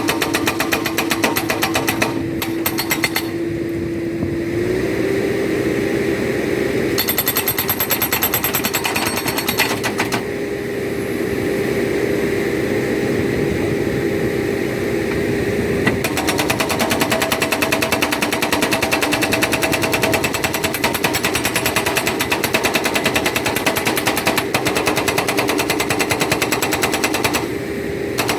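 Backhoe-mounted hydraulic rock breaker hammering in rapid, repeated blows over the backhoe's steadily running engine. The hammering stops briefly a few times, leaving the engine running.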